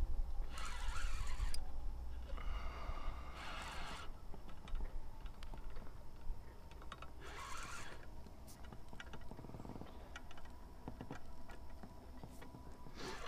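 Handling noise in a small inflatable boat: a few short scraping rustles, each up to about a second long, with faint clicks between them. A low rumble underneath fades after the first few seconds.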